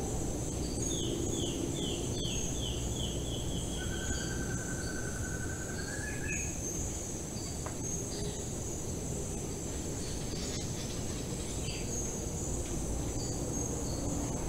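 Tropical forest ambience: insects keep up a steady high-pitched drone while a bird sings a quick run of about eight falling notes, followed by a long, slightly rising trill, with scattered short chirps over a low background hiss.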